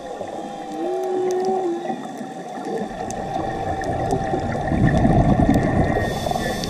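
Underwater sound on a scuba dive: a steady crackle of sharp clicks from the reef, a few long pitched tones (one held for about a second early on), and a loud bubbling rush of scuba regulator exhaust past the halfway point.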